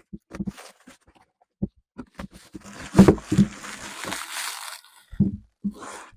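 An acoustic guitar and its packing paper being handled: paper rustling and crinkling for a couple of seconds in the middle, with scattered knocks and bumps against the guitar body, a few of which ring briefly.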